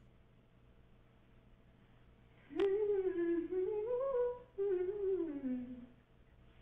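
A woman humming a slow tune to herself: two short phrases, the second sinking lower as it trails off, starting a couple of seconds in over a steady low hum of the room recording.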